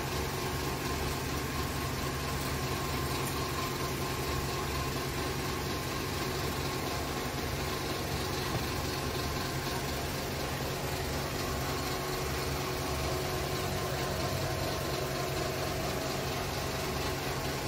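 A motor or engine running steadily: an even, unchanging low hum with a faint steady higher tone over it.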